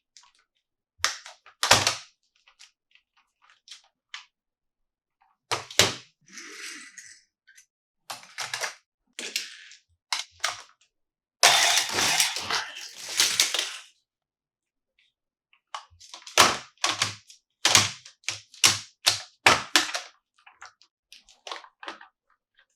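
Close-up handling of a plastic toy car and its packaging: scattered sharp taps and clicks, with a rapid run of clicks near the end, and two stretches of crinkling rustle, the longer one a little past the middle.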